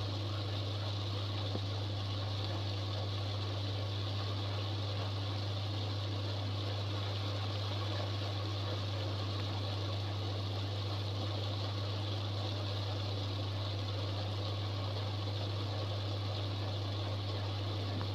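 Spinach and onions cooking in a steel pot, a soft, even sizzle over a constant low hum.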